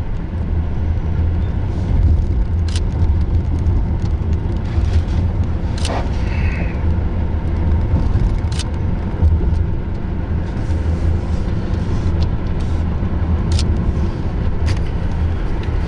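Steady low road and engine rumble inside a moving car, with a few brief sharp clicks or knocks.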